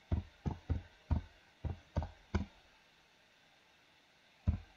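Computer keyboard being typed on: about seven separate keystrokes, heard as dull knocks, over the first two and a half seconds, then a pause, then two more keystrokes near the end.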